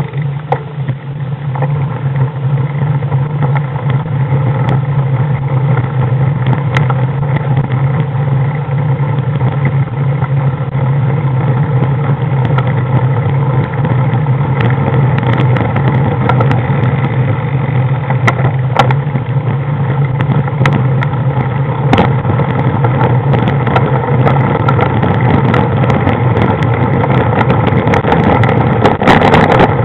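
Engine of a moving road vehicle running at a steady, unchanging pitch, loud and close, with scattered short clicks over it.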